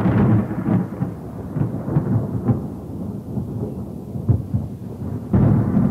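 Low, uneven rumbling noise that surges irregularly and grows louder about five seconds in.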